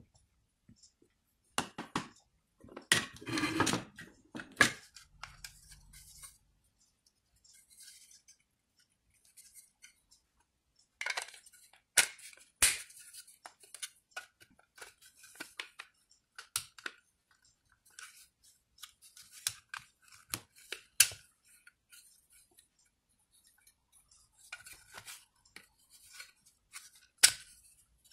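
Plastic parts and blade inserts of a handheld fruit and vegetable slicer being handled and fitted together: irregular clicks and knocks, with a denser stretch of handling noise about three seconds in and the loudest knock near the end.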